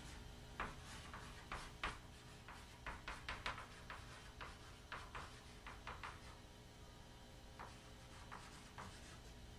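Chalk writing on a chalkboard: short scratchy strokes and taps in quick, irregular runs, thinning out to a few strokes in the last few seconds.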